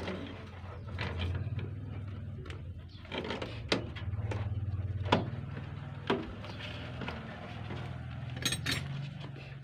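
Scattered clicks and light knocks of hands working wires and a plastic fuse box, over a steady low hum.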